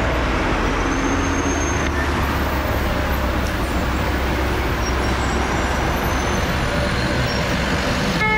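Steady road traffic noise on a busy city street: cars and buses running past with a constant low rumble.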